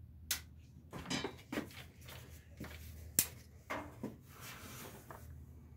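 Scattered faint clicks and light knocks of things being handled, the sharpest about three seconds in, over a faint low hum.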